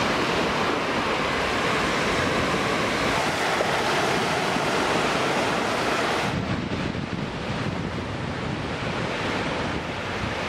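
Small sea waves breaking and washing up the beach, with wind rushing over the microphone. About six seconds in the sound turns duller, with less hiss.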